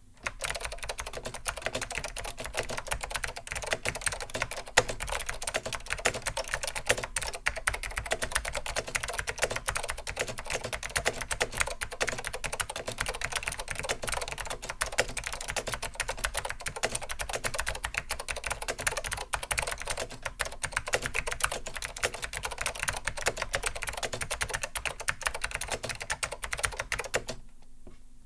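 Typing on a Focus FK-555 mechanical keyboard with clicky Alps SKCM blue switches: a fast, continuous run of clicky keystrokes that stops shortly before the end.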